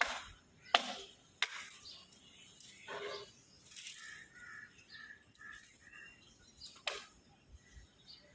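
Crows cawing several times, with smaller birds chirping in short high notes through the middle.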